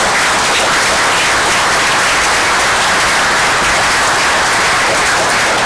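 A roomful of people applauding, steady clapping.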